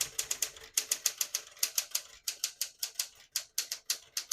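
A 1962 Smith-Corona Galaxie II manual portable typewriter being typed on: a fast, uneven run of typebar strikes, about five a second.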